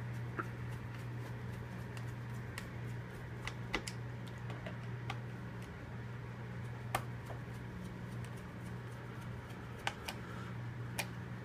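Small screwdriver turning screws back into the plastic underside of an HP ProBook 6550B laptop: scattered light clicks and ticks, about eight in all, over a steady low hum.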